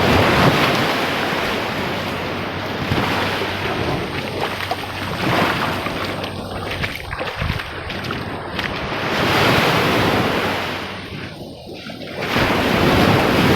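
Ocean surf washing in, swelling and easing several times, with wind buffeting the microphone.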